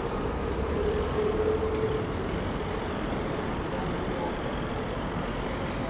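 Street traffic noise: a steady hum of road vehicles, with a faint steady tone through the first couple of seconds.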